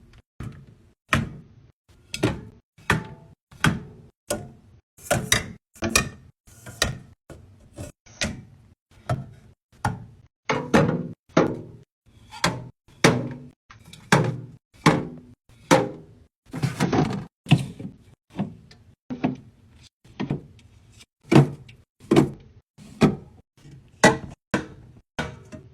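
Drinks and food containers being set into a mini fridge and its door shelves: a quick, uneven run of thunks and knocks, about one or two a second.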